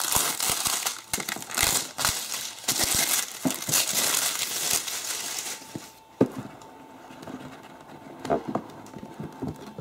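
Clear plastic shrink-wrap being peeled off a cardboard box, a dense crinkling that dies away about six seconds in. A few soft knocks follow as the box is handled.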